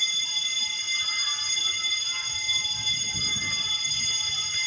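Fire alarm sounding continuously, a steady high-pitched tone made of several pitches held together. It went off when power returned after a blackout, a false alarm that the owner suspects comes from a short circuit in the wiring.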